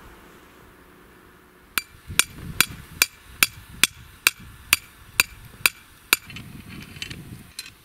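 A hammer striking the top of an iron campfire hanger pole, driving it down: about eleven sharp, ringing metal-on-metal clinks, a little over two a second, that then stop.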